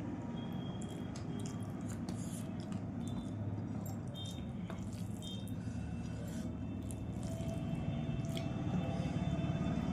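Eating rice and fish curry: wet squishing, small clicks and chewing, over a steady low background hum.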